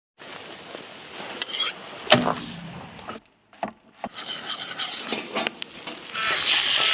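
Rubbing and scraping on wood, with a sharp knock about two seconds in and a hiss starting near the end.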